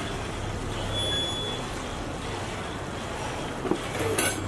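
Chicken cooking in a pan on the stove, a steady hiss with a low hum underneath. A spoon knocks against the pan a few times about four seconds in.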